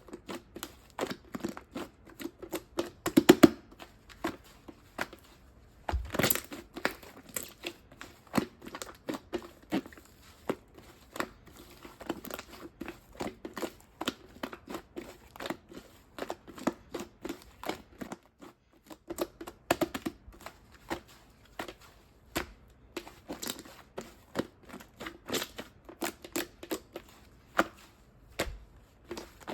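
Pink swirled slime being mixed and squeezed by hand, giving a dense, irregular run of sticky clicks and crackles. The loudest cluster comes about three and a half seconds in.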